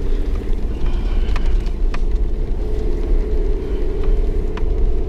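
Car driving slowly over a rough grass track, heard from inside the cabin: a steady low engine and tyre rumble, with a few sharp clicks or knocks scattered through it.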